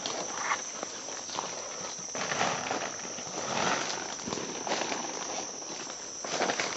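Steady high-pitched drone of rainforest insects, with irregular rustling of footsteps moving through leaf litter and undergrowth, swelling about halfway through and again near the end.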